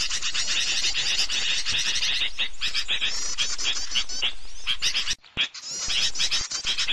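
Small-bird lure call (pikat): dense, rapid chirping and twittering of small birds, the kind of call bird-catchers play to draw small birds in. The chirping breaks off briefly a little after five seconds, then carries on.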